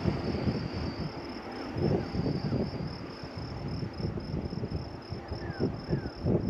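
Insects chirping in a rapid, even, high-pitched pulse, over a low, uneven rumble.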